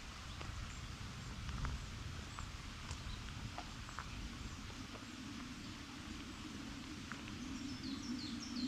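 Countryside ambience with scattered bird chirps, over a low steady rumble and a few faint clicks. Near the end a bird sings a quick descending run of notes.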